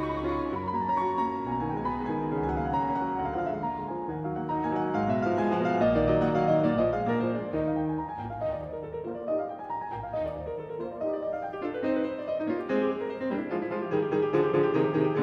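Background music: a piano playing a run of notes that shift in pitch.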